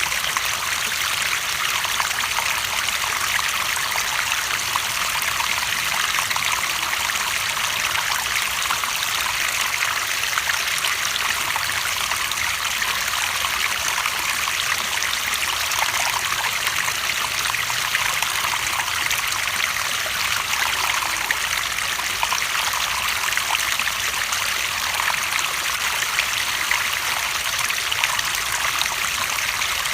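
Running water trickling and splashing steadily, an even, unbroken rush with fine crackle in it.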